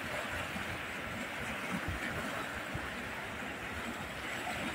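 Fast-flowing floodwater rushing and swirling past a bridge pier: a steady, even rush with an uneven low rumble underneath.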